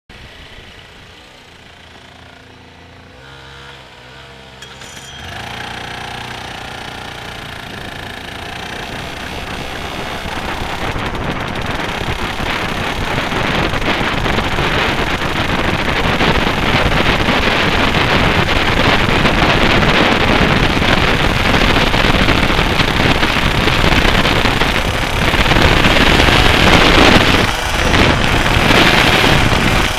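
125cc two-stroke kart engine heard from the driver's seat: quiet at first, it picks up sharply about five seconds in and then revs louder and louder as the kart accelerates, running hard with a brief dip near the end.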